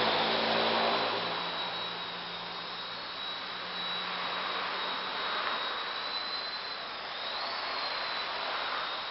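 WLtoys V977 micro RC helicopter running: its brushless motor and rotors give a steady high whine over a hiss of rotor wash. The pitch dips and rises briefly about seven seconds in.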